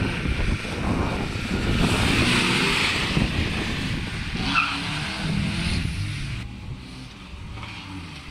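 Classic rally car's engine running hard as the car passes close and takes the junction, with a brief high squeal about four and a half seconds in, then the engine sound falling away as it drives off.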